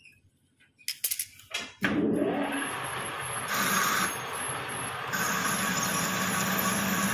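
A few light clicks, then a metal lathe switched on about two seconds in: the motor and chuck spin up and run steadily, with a thin high whine as a boring bar works inside the bore of a bronze-coloured sleeve.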